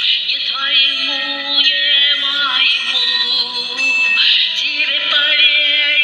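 Song: a voice singing long, wavering notes with vibrato over steady instrumental backing.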